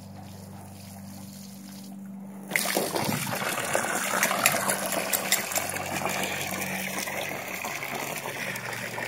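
A garden hose stream pouring and splashing into a plastic kiddie pool full of water, starting suddenly about two and a half seconds in and then running steadily.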